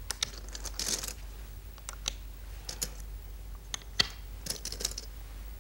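Go stones clicking as they are placed on and taken off a large wall-mounted demonstration board, a series of irregular sharp clicks.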